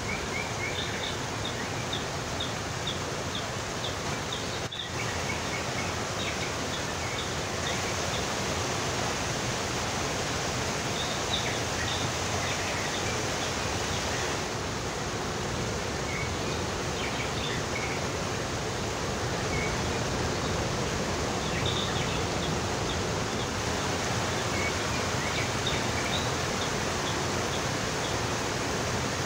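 Outdoor fountain water splashing steadily: rows of wall spouts arcing into a channel and water tumbling down a stepped cascade make an even rushing hiss. Faint, short high chirps sound here and there over it.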